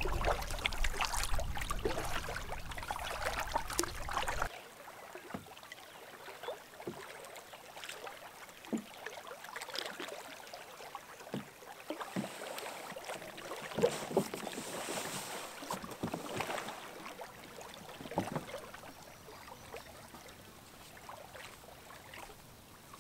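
Canoe paddle strokes in water, a soft splash every second or two. For the first four seconds or so a louder rush of wind and water covers them, then stops suddenly.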